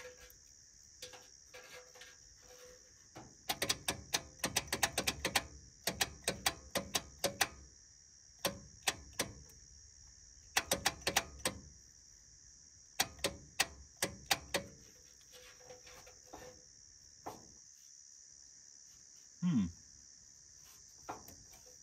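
Starter solenoid on a 1976 HX Holden ute's six-cylinder engine clicking in quick bursts of rapid clicks each time the remote starter button is pressed, without the engine cranking over. The owner suspects he may have cooked the starter. Crickets chirp steadily underneath.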